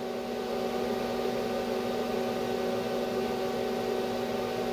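Steady electrical hum with a fan-like hiss from an idling welding machine, even and unchanging; no arc is burning.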